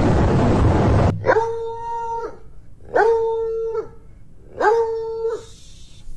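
A dog howling three times, each howl about a second long: it slides up, holds one pitch, then drops away, in reaction to its owner's sheet face mask. A loud rushing noise fills the first second and cuts off sharply before the first howl.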